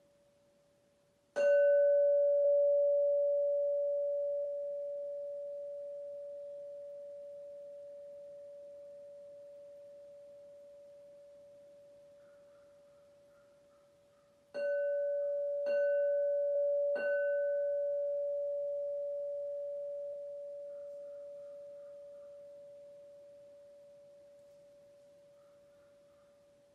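Crystal singing bowl, the bowl for the second chakra, struck with a mallet. One strike about a second in rings out as a single clear tone that slowly fades, then three strikes in quick succession about halfway through ring on and fade away.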